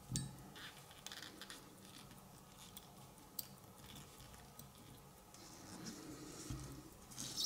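Faint clicks, taps and light scraping of small metal watch parts being handled in a case holder by fingers in rubber finger cots. A few sharper clicks stand out: one just after the start, one about three and a half seconds in, and a small clatter near the end.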